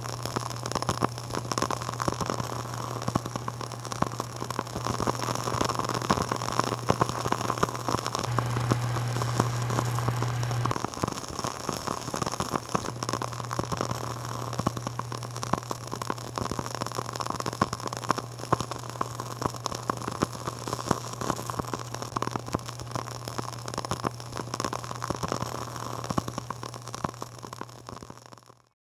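Dense crackling, many small clicks over a steady hiss, with a constant low hum underneath that swells for a few seconds about eight seconds in; it fades out at the end.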